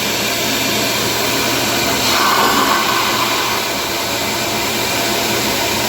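Shop vac running without its filter as wet vac, sucking the last water out of a toilet bowl: a loud, steady rushing whine with a brief change in tone about two seconds in.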